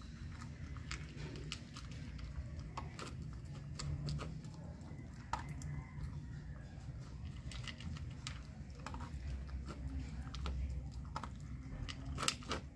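A dog eating dry kibble from a plastic bowl: irregular crisp crunches and clicks of teeth and kibble against the bowl, with a steady low rumble underneath.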